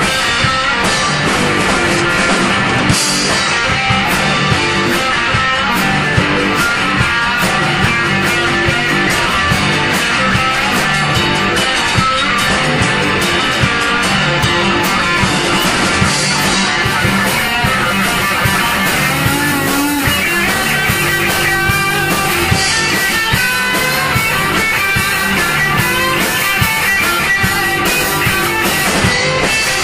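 Rock music with guitar and drums, the drum hits keeping a steady beat.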